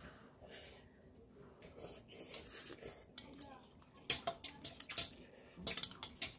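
Chopsticks and a soup spoon clicking and scraping against a soup bowl while noodles are lifted out, with a quick run of sharp clicks in the second half.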